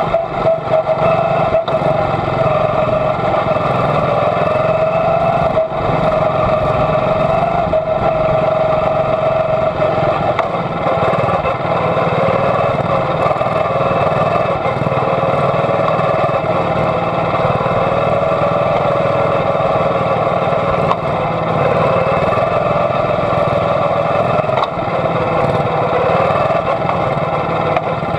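A quarter midget's small single-cylinder Honda four-stroke engine running hard at racing speed, heard onboard; its pitch wavers gently up and down as the car goes around the oval.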